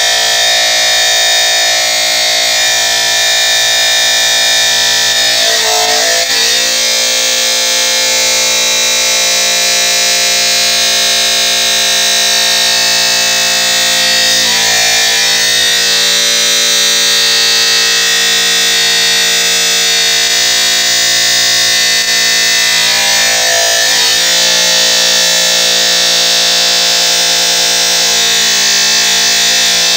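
Abrasive cut-off disc of an SM Stahl robotic fettling machine spinning and grinding through the gate of a femoral casting to cut it from the casting tree, a steady high whine with a grinding hiss. The pitch dips briefly three times, about nine seconds apart.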